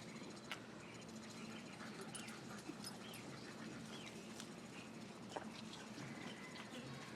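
Faint sounds of dogs playing: a few light clicks and scuffles over a low steady background hum.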